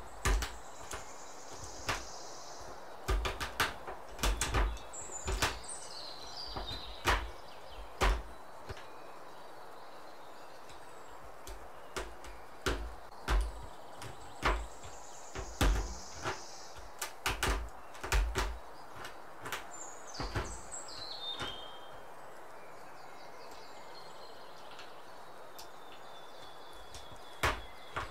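Chef's knife chopping a bar of dark chocolate on a bamboo cutting board: sharp knocks of the blade hitting the wood in irregular clusters, with pauses in between. Faint high falling chirps can be heard a few times.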